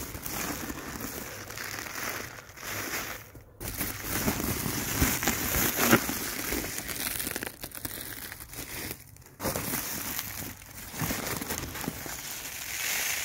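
White woven plastic sacks crinkling and rustling irregularly as they are handled and stuffed into a plastic trash can, with brief pauses about three and a half and nine seconds in.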